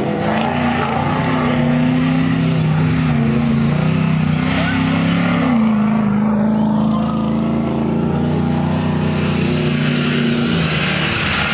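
Off-road race truck's engine running hard under load through deep mud, its pitch rising and falling with the throttle, with tyre and mud noise beneath.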